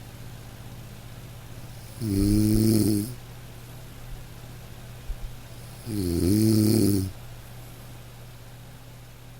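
A person snoring: two long, pitched snores about four seconds apart, each lasting about a second, with a faint low hum between them.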